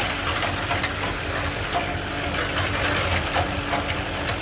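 An engine running steadily with a low hum, over a steady hiss and a few light clicks.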